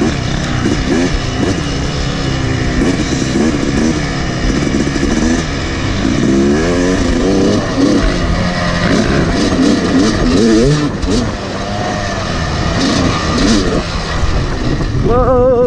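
Yamaha YZ250 two-stroke dirt bike engine being ridden hard along a trail, its pitch rising and falling again and again with the throttle and gear changes, over a constant rush of wind noise.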